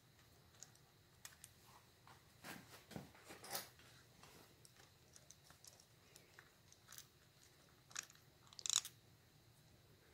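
Faint handling noise: scattered small clicks and scratchy scrapes as a coil pack mounting bolt on an outboard engine is unscrewed by hand and drawn out. The scrapes come in two short clusters, about two and a half seconds in and again near the end.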